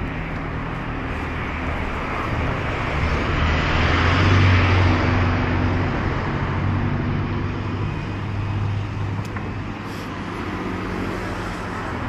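Road traffic on a city street: engine hum and tyre noise, swelling as a vehicle passes close about four to five seconds in, then easing off.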